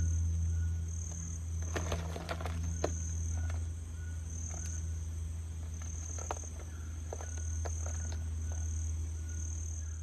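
Insects chirping in short high-pitched pulses about once a second over a steady low hum, with a few clicks and rustles about two to three seconds in.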